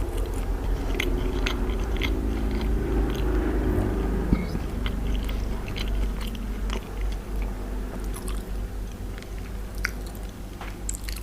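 A person chewing food close to the microphone, with scattered small wet clicks and crunches.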